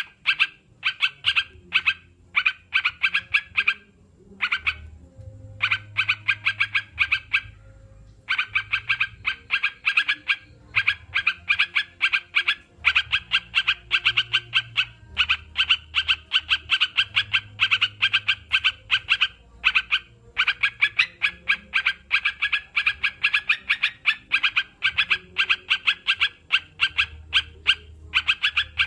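Crucukan, a bulbul, calling: fast chattering runs of short, sharp notes repeated many times a second, broken by a few brief pauses.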